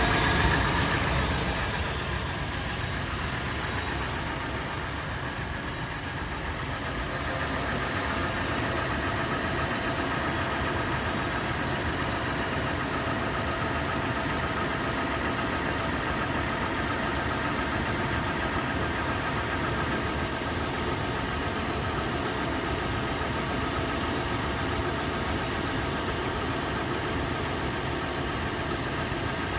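Toyota FJ engine idling after a warm start, with a steady clattering tapping running through the idle. It is louder for the first couple of seconds, then settles to an even level.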